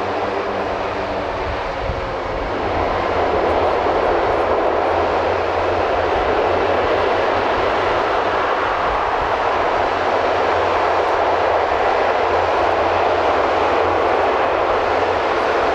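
Airbus A400M's four TP400 turboprop engines on the landing roll, going to maximum reverse thrust to stop in a short distance. A steady propeller drone with even tones gives way, about two and a half seconds in, to a much louder roar that holds.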